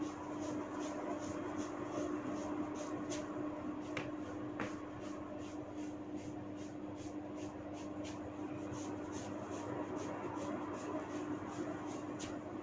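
Hair cracking during a head massage: strands of hair tugged in a steady rhythm, giving faint dry crackles about three times a second, with a few sharper cracks. A steady hum runs underneath.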